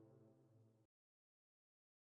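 Near silence: the last faint tail of a sustained tonal effect fades out within the first second, followed by dead digital silence between effects.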